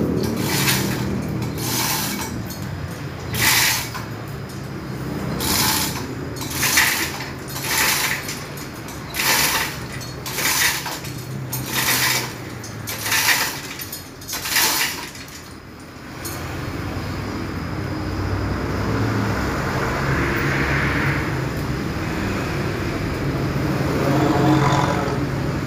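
Manual chain hoist lifting a car engine: the hand chain rattles and clanks in a short burst with each pull, a little under one pull a second. After about fifteen seconds the pulling stops and a steadier low mechanical noise with a faint hum takes over.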